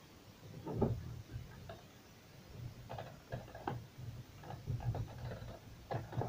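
Plastic pull-handle trim on a Renault Duster door panel knocking and clicking as it is pried and tugged to work its retaining clips loose. There is one sharp knock about a second in, then a run of irregular clicks and knocks from about three seconds on.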